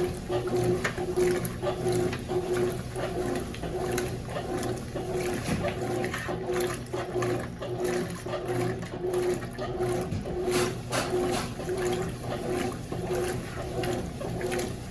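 Consul 12 kg top-load washing machine agitating a load of jeans in water: the motor hum pulses on and off in short, regular strokes as the agitator swings back and forth, with the water sloshing.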